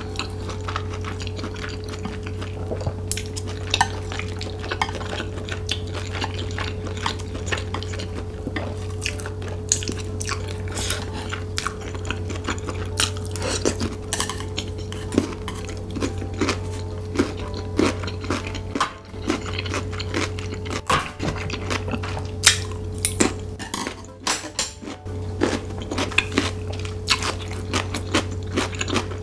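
Wooden chopsticks clicking and scraping irregularly against a plate, picking up the last bits of noodles, over a steady low hum.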